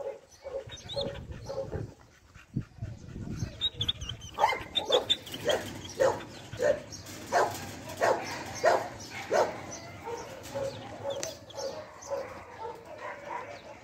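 Dog barking in a steady run of loud barks, about one and a half a second, starting about four seconds in and stopping after about five seconds, with softer yips and whines before and after.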